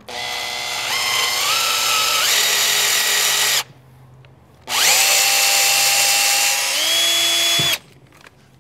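Makita 18-volt cordless drill boring a hole into the wrist of a wooden Krag rifle stock, run in two bursts of about three and a half and three seconds with a short pause between. The motor whine steps up in pitch a few times within each burst. The bit goes in fairly easy, with no metal hit inside the wood.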